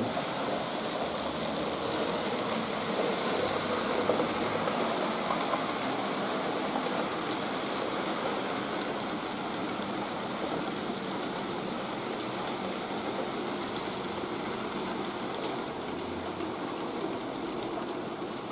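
Fleischmann BR 151 model electric locomotive and its freight wagons rolling along model railway track: a steady, rain-like rushing clatter of small wheels on rails, with faint clicks over the rail joints, growing a little fainter near the end.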